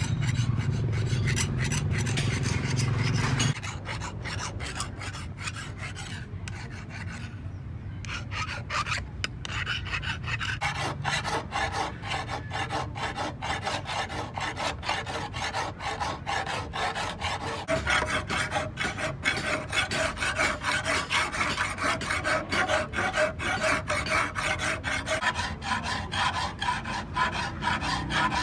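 Steel sickle blade being filed by hand along its edge: repeated rasping strokes of metal on metal, getting louder in the second half. A low hum in the first three seconds cuts off suddenly.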